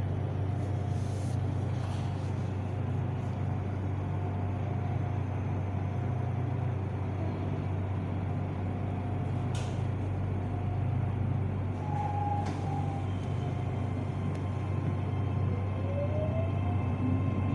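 Interior of an SRT Red Line electric commuter train: a steady low hum while it stands at the platform, then, near the end, a rising electric whine as the traction motors start the train moving.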